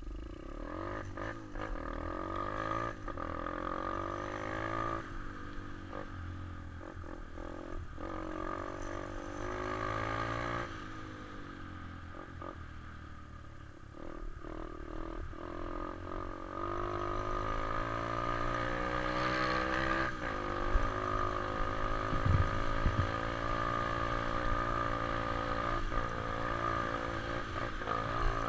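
125 cc pit bike engine under way, its pitch climbing in several long sweeps and falling back between them as the bike accelerates and eases off. It runs a little louder in the second half.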